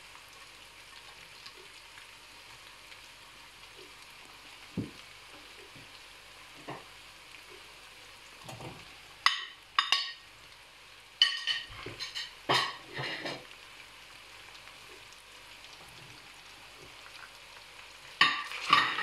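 Chicken and carrots frying in a stainless-steel pot with a faint steady sizzle. The sizzle is broken by several sharp metallic clatters and scrapes as plates and a metal spoon knock against the pot while shredded cabbage, peppers and peas are tipped in. A cluster of clatters comes about halfway through and a loud pair near the end.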